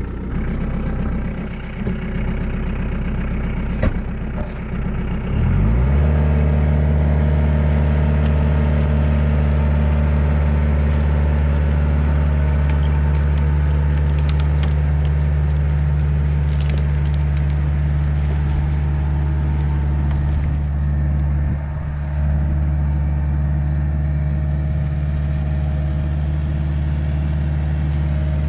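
Kioti DK40se compact tractor's diesel engine idling, then revving up about five seconds in and running steadily at higher speed under load as the tractor skids a log on a chain from its three-point hitch drawbar.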